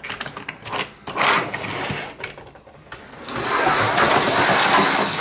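Plastic toy vehicles handled and pushed across a play mat, with irregular clicks and scrapes, then a steady motor-like whir from about three seconds in.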